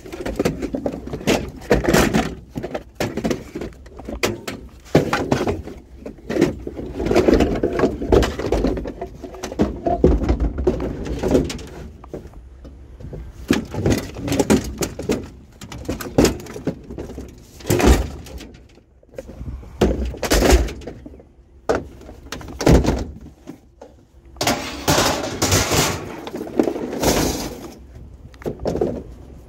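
Chairs and a table being handled and loaded into a vehicle: repeated irregular clattering knocks and scraping, with sharp bangs at intervals.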